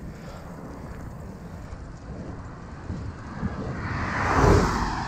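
A vehicle passing close by: its noise swells to a peak about four and a half seconds in and then fades. Wind buffets the microphone underneath.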